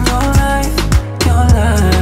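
Background music with a steady beat: a pop/R&B-style track with regular kick-drum strokes about twice a second over a deep bass line. It dips briefly about a second in, then comes back with a heavier bass.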